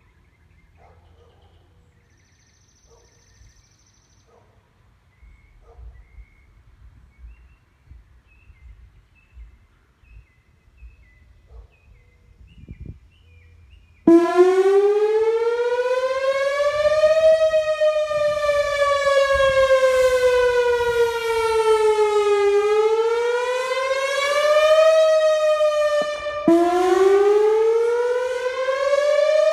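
Whelen Vortex R4 electronic rotating siren sounding a noon test, coming on suddenly about halfway through and sweeping slowly up and down in pitch in a wail. Near the end the tone briefly drops out and starts rising again. Before the siren there is only a quiet stretch with faint high chirps.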